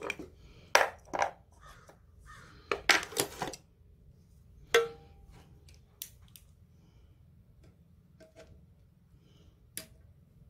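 Metal hand tools clinking and clanking on a cluttered steel-strewn workbench as they are picked up and set down: a burst of sharp clanks in the first few seconds, one ringing briefly, then a few lighter clicks and a last sharp click near the end.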